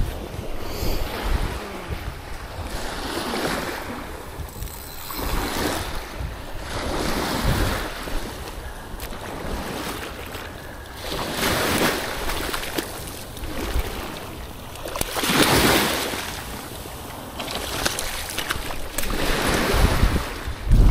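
Ocean surf breaking and washing on a beach, the hiss swelling and fading every few seconds, with wind rumbling on the microphone.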